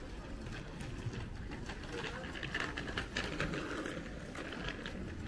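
Street ambience: indistinct voices of people nearby over a steady low hum, with a few light clicks about two to three seconds in.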